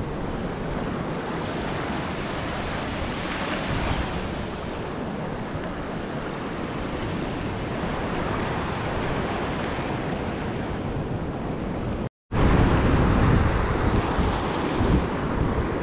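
Small waves washing up on a sandy shore, with wind buffeting the microphone. The sound drops out for an instant about twelve seconds in and comes back louder and rougher with wind.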